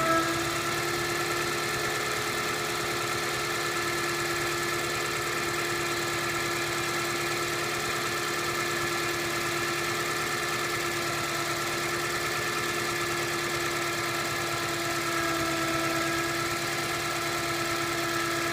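Toyota Voxy minivan running, with a steady high whine held on one pitch over the engine's low hum; this is the strange noise the owner is worried about. The whine sags slightly in pitch once or twice.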